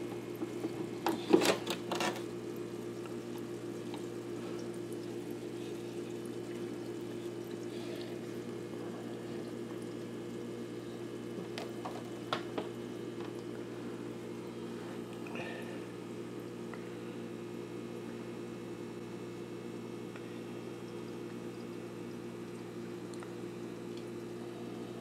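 Steady bubbling of an air-driven aquarium sponge filter over a steady low hum, with a few sharp knocks or taps about a second or two in and again around twelve seconds.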